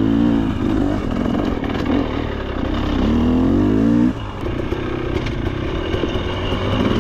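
KTM 300 XC two-stroke dirt bike engine revving as the bike is ridden, the pitch rising and falling with the throttle. It climbs for about a second and then drops off sharply about four seconds in, when the throttle is shut, and runs on at lower revs.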